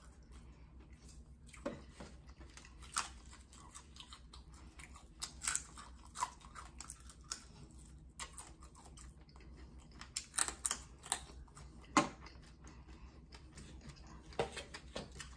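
Close-miked chewing of crispy fried fish and its crunchy fins, with irregular sharp crunches and clicks, several coming close together about ten to eleven seconds in.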